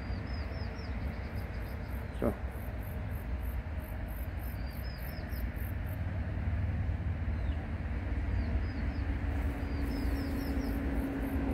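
Grass insects calling: a very high pulsed call, about four pulses a second, that stops and starts, with faint short chirps lower down, over a low rumble.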